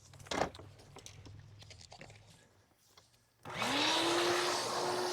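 An electric air-cleaning tool switches on about three and a half seconds in. Its motor spins up with a quickly rising whine, then runs steadily over a loud rush of air. It is being used to clear grass clippings and debris out of the mower's motor housing. Before it starts there are only faint handling sounds and one knock.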